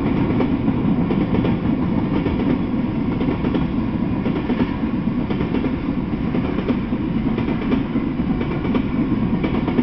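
Freight train cars rolling past: a steady noise of steel wheels on rail, with many small clicks and knocks from the wheels and couplings.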